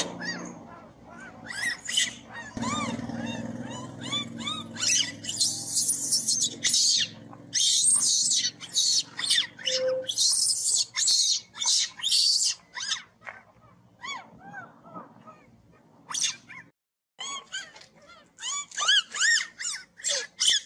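Baby monkeys screaming in a rapid series of short, high-pitched calls, each rising and then falling in pitch, with a brief break about two-thirds of the way through.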